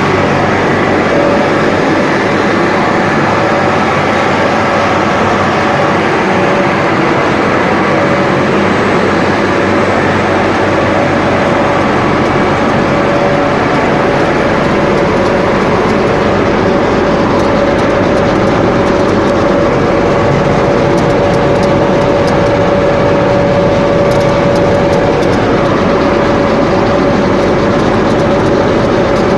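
Buldog DUPLEX two-sided calibrating sander running steadily, its 11 kW main motors driving the upper and lower sanding and grooving drums: a loud, even mechanical noise with a constant whine, the machine working normally.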